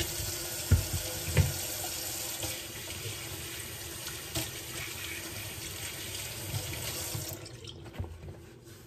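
Kitchen sink faucet running while hands are washed under it, with a couple of thumps in the first second and a half. The water shuts off suddenly about seven seconds in.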